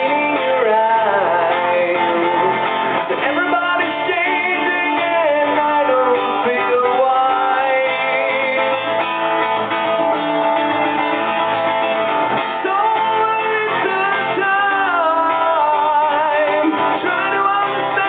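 Live song: a singing voice with wavering, gliding melody lines over guitar accompaniment.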